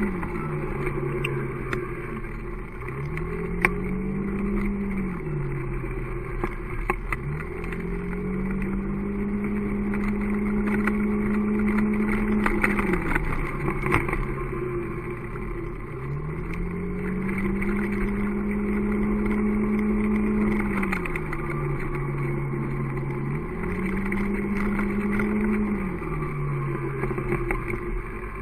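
Engine of the vehicle carrying the camera, pulling away and running along: its pitch climbs to a steady level, holds there for several seconds, then falls back, about four times over, under a haze of road and wind noise with occasional knocks.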